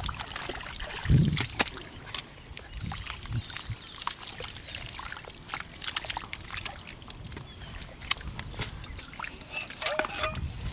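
Hands and bare feet squelching and splashing in wet mud and shallow muddy water: irregular wet smacks, sloshes and drips, with one heavier low thump about a second in.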